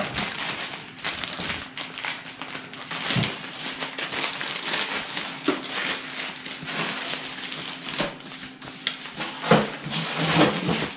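Clear plastic bags crinkling and rustling as a bagged manual and a bagged cord are handled, with a few light knocks as they are set down on the computer case.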